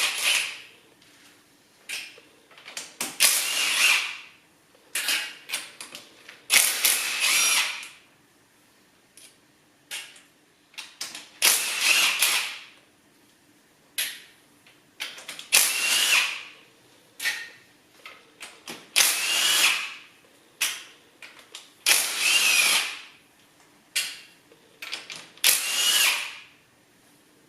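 Handheld power drill/driver run in short bursts, about eight in all, each spinning up to a whine and winding down, with small clicks between, as fasteners are backed out of the engine's cylinder head.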